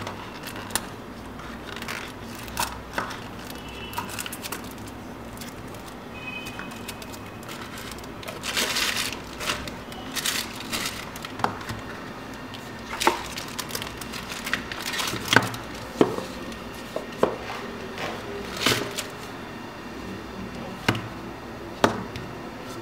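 Hands unpacking a smartphone's retail box: scattered light taps and knocks of cardboard and small items set down on a tabletop, with two short bursts of rustling packaging near the middle.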